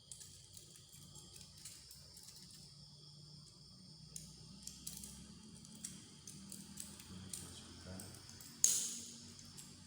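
Light clicks and taps of parts being handled, with one louder sharp click near the end.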